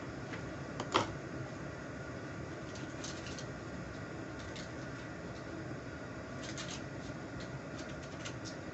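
Quiet eating sounds over a steady background hiss: one sharp click about a second in, then scattered soft clicks.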